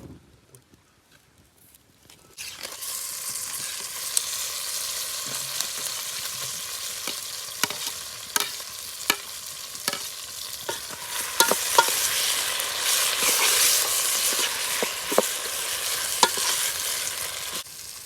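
Wood cooking fire hissing steadily, with sharp crackles and pops at irregular intervals. It starts abruptly a couple of seconds in and stops just before the end.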